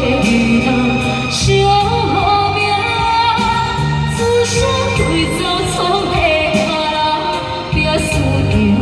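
Music: a Hokkien pop song performed to a karaoke backing track, with a steady beat, bass notes and a wavering melody line.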